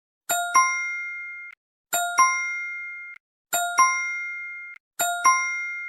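Phone message ringtone: a two-note chime, two quick bell-like strikes with the second louder, ringing and fading over about a second. It repeats four times, about every one and a half seconds.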